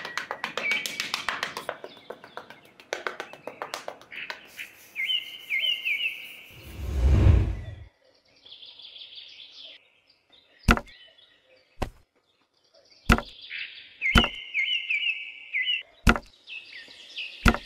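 A small hand trowel scraping and tapping in sand, then a deep whoosh about seven seconds in. After that come six sharp knocks, a second or so apart, as small model house wall pieces are set down on the sand base. Birds chirp in the background.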